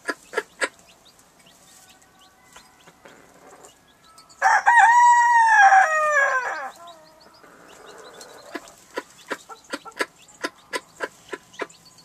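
A rooster crows once, a single call about two seconds long that starts about four seconds in, rises, holds and falls away. Around it comes a scatter of sharp clicks, in a quick run near the end.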